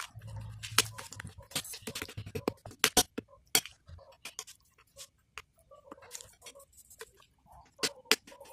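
Metal spoon clinking and scraping against a ceramic plate while scooping rice porridge, in irregular sharp ticks. Soft chewing sounds come in between.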